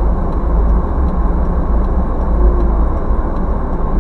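Steady engine and road rumble of a car driving, heard from inside the cabin.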